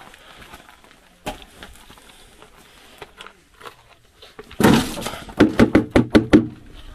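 Plastic bucket being knocked against an old shower tray to shake out food scraps for chickens: a quick run of sharp, loud knocks starting a little past the middle, about seven or eight in under two seconds.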